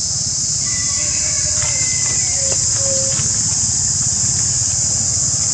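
Steady, unbroken high-pitched insect chorus droning, over a low steady rumble, with a few faint short whistle-like calls in the first few seconds.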